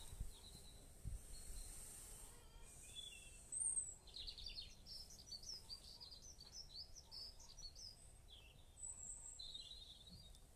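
Faint birdsong in a garden: scattered high chirps, then a quick run of chirping from about four seconds in and a few more calls near the end, over a low, steady background noise.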